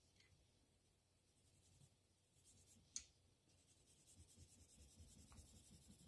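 Faint scratching of a Tombow NQ colored pencil shading back and forth on drawing paper, the strokes growing louder after about two seconds. A single sharp click about three seconds in.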